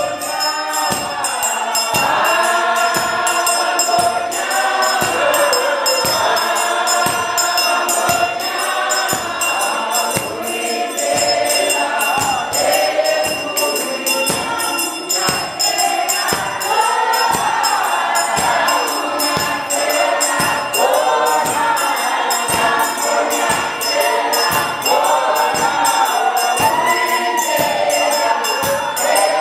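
A choir sings a gospel song together to a steady beat of about two a second.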